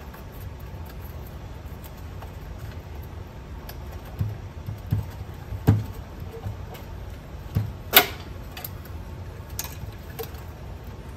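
Scattered light clicks and taps of hands routing wires and handling parts inside a cassette deck during reassembly, the sharpest click about eight seconds in, over a steady low background rumble.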